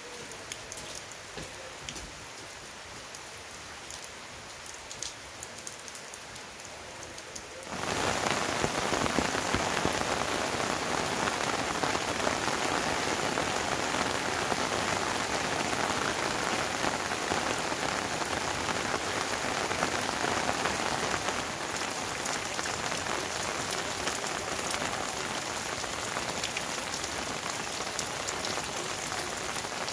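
Rain falling, with scattered separate drops heard at first; about eight seconds in it jumps abruptly to much louder, denser heavy rain that holds steady.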